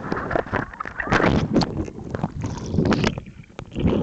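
Water splashing and sloshing around a kayak in surf, in irregular surges with sharp splashes, with wind on the microphone.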